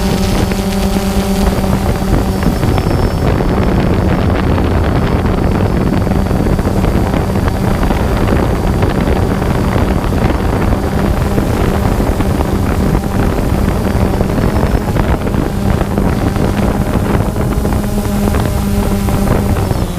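A steady motor hum with wind buffeting the microphone.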